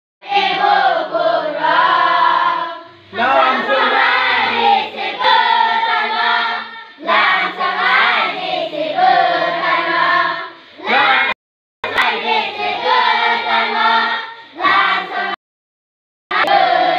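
A group of children singing together, sung phrases broken by short pauses for breath. The sound drops out completely twice, briefly about two-thirds of the way through and for about a second near the end.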